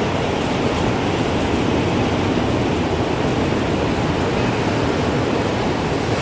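Wind blowing steadily in a dense, even rush, with no wind chime ringing.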